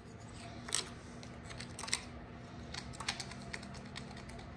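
A few scattered light clicks and taps, the sharpest a little before the halfway point and a small cluster around three seconds in, over a faint steady hum.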